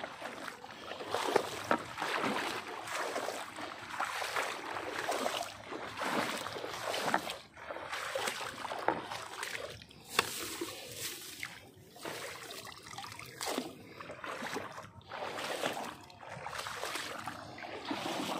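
Shallow water in a flooded field sloshing and splashing in irregular bursts, as it is waded through or stirred.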